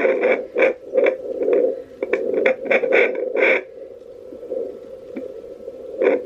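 Home fetal doppler monitor playing through its small speaker: a steady whooshing hum broken by irregular scratchy pulses, busy for the first three and a half seconds, then quieter, with one more strong pulse near the end.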